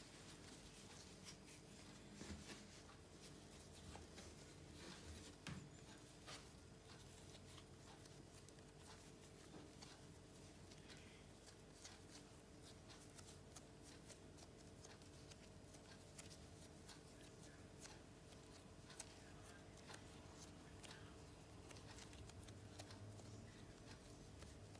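Near silence: faint soft handling sounds of hands pinching and folding a ball of bread dough on a countertop, with scattered light ticks over a low steady hum.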